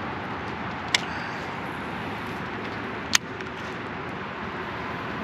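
Steady outdoor background rush with two sharp clicks, about two seconds apart.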